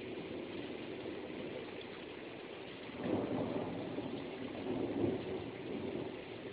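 Steady rain falling, with a roll of thunder rumbling in about halfway through, swelling twice and easing off near the end.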